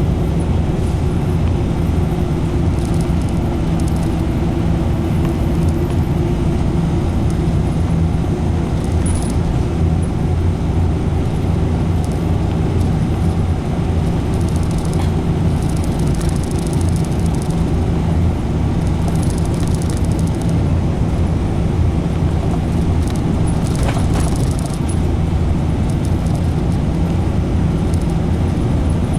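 Route bus on the move, heard from inside the passenger cabin: the engine hums steadily under road and tyre noise, with light rattles now and then.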